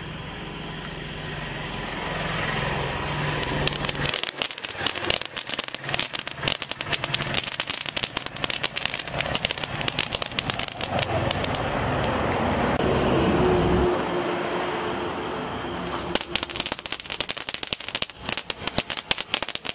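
Starwell 'Top Gun' handheld gun-shaped firework spraying sparks. It hisses at first, then crackles in rapid snaps from about four seconds in, denser near the end.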